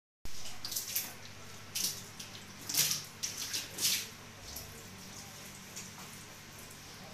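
Water splashing in several short bursts during the first four seconds, from a refrigerator being defrosted, with a faint steady hum underneath.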